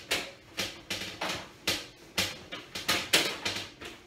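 Toilet paper rubbed briskly over a toilet lid in a quick series of short wiping strokes, about three a second.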